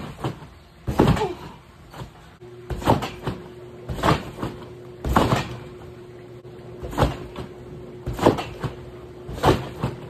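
Trampoline bed thumping under repeated bounces, about one landing a second at an uneven pace. A faint steady hum sets in a couple of seconds in.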